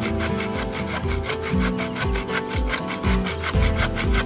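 Small hand saw cutting through a dry, dead tree branch in quick, even back-and-forth strokes, with faint background music underneath.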